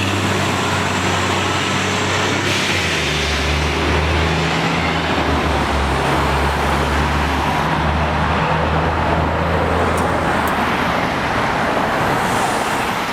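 MCI D4500CL coach's Caterpillar C13 diesel engine running under way. Its low engine note shifts pitch a few times over steady road and traffic noise.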